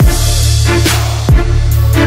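Music with a heavy beat: a strong bass and drum kit, with a deep falling bass hit at the start and another about 1.3 s in.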